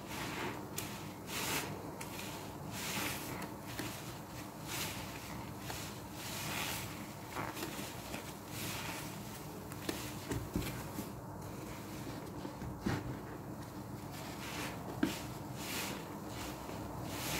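Sudsy foam sponges squeezed and wrung by hand in laundry-liquid lather: repeated wet squelching and crackling of foam, stroke after stroke, with a few sharper clicks in the second half.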